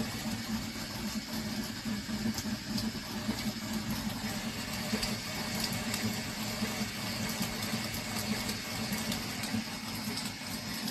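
VzBot 3D printer running a print, its stepper motors and fans making a steady, fluttering hum with faint ticks as the print head moves.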